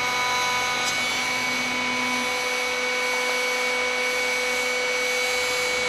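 Table-mounted router running at full speed with a steady high whine, its Freud lock miter bit cutting the lock miter profile in a drawer side fed upright along the fence.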